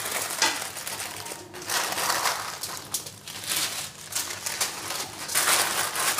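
Butter paper crinkling and rustling in irregular bursts as hands fold it around a marinated mutton leg and press it onto the aluminium foil beneath, loudest near the end.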